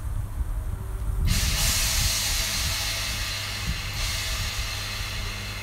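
Electric multiple unit train standing at the platform with a steady low hum, then a sudden loud hiss of compressed air venting from its air system about a second in, easing to a softer hiss a few seconds later.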